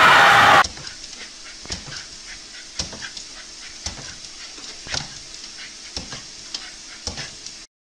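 Loud crowd cheering that cuts off suddenly under a second in. Then a small dog jumps up and down at a person's feet on a hard kitchen floor, with irregular clicks and taps about twice a second, and panting.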